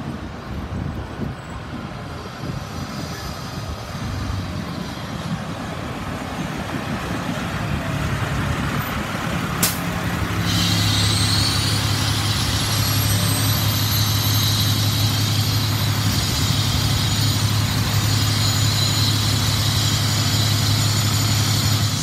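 A 2007 Pierce Quantum fire engine's diesel engine grows louder as the truck approaches and pulls up close. About ten seconds in there is a sharp click. After that the engine settles into a steady, loud running drone with a high whine above it.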